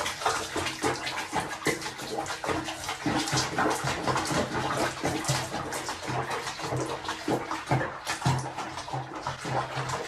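Water splashing and sloshing in quick, irregular bursts.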